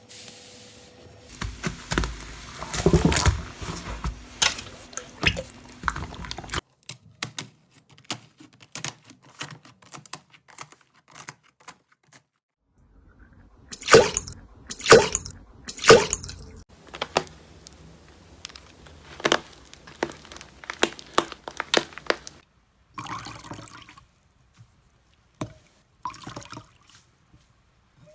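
Slime being squeezed and poked, making wet squelches and many small clicking pops. About halfway through come three louder pops, about a second apart.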